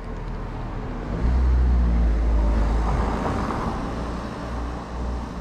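A road vehicle driving past, its low engine rumble and road noise growing louder about a second in and fading toward the end.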